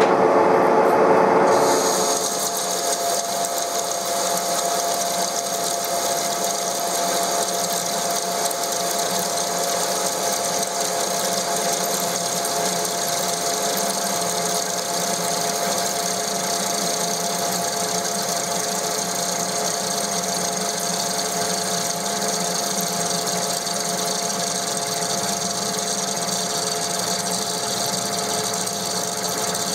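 TOS SN63B lathe turning a steel wheel hub with an insert tool: a steady cutting noise with a few steady whining tones from the running spindle and the chips coming off. The sound changes about a second and a half in, then holds steady.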